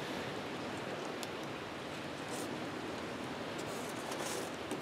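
Steady outdoor background hiss with no voices, and a few faint light clicks about one and two and a half seconds in as wire leads with crocodile clips are handled.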